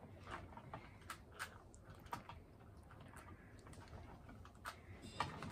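Standard Rubik's Cube being scrambled by hand: faint, irregular clicking of its plastic layers being turned.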